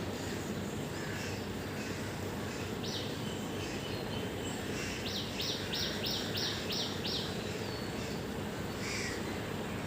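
Birds calling over a steady low background hum. Scattered faint chirps come and go; one bird gives a single sharp high note about three seconds in, then a quick run of about eight sharp high notes in the middle.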